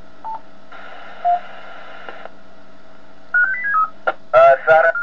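Amateur radio transceiver on the 145.800 MHz ISS downlink between voice transmissions. A short beep is followed by about a second and a half of hiss as the channel opens, then a quick run of beeps stepping up and back down in pitch, and a click just before speech returns.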